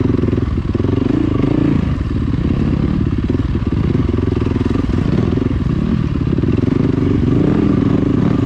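Dirt bike engine running as the bike climbs a rocky trail, its pitch rising and falling every second or two with the throttle.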